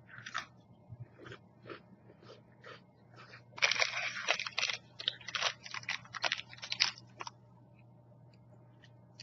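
Crunching of a chocolate-filled sandwich cookie being bitten and chewed: a few light crunches at first, then a dense run of loud crunching from about three and a half seconds in to about seven seconds, after which it stops.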